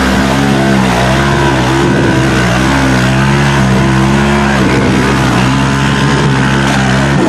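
Off-road vehicle engine running at steady high revs, its pitch wavering slightly up and down.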